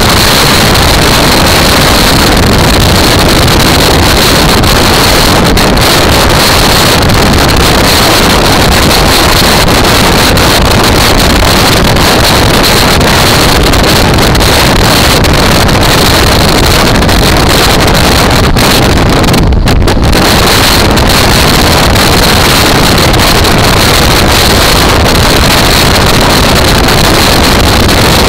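Loud, steady rush of wind over the microphone of a camera on a moving motorcycle at road speed, with the bike's running and road noise blended in.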